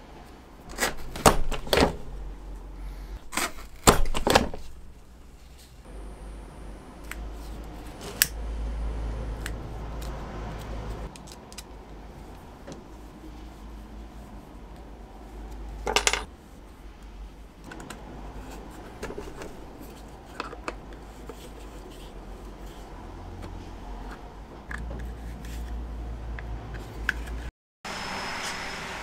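Small hand tools handled on a wooden workbench: a few sharp clicks and light metallic clatters, in clusters about one and four seconds in and again around sixteen seconds, over a low steady hum.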